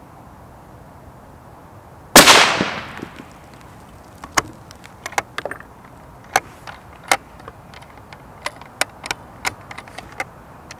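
A single shot from a Sako S20 bolt-action rifle in .308 about two seconds in, the loudest sound, dying away over about a second. Then the bolt is worked with a string of sharp metallic clicks as the next cartridge fails to feed cleanly and is handled in the ejection port.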